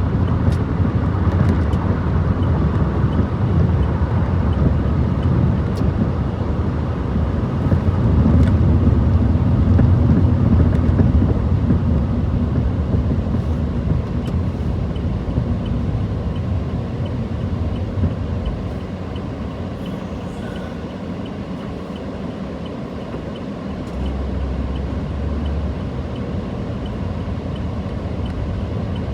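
Road and engine noise of a car being driven, heard from inside the cabin as a steady low rumble. It eases off for several seconds past the middle, then picks up a little.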